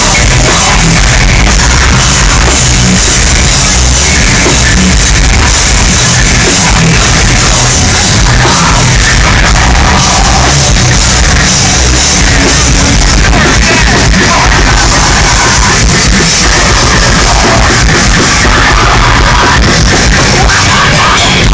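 Live metalcore band playing at full volume: distorted electric guitars, bass and drums with a screamed lead vocal, loud and unbroken throughout, picked up by a phone microphone in the crowd.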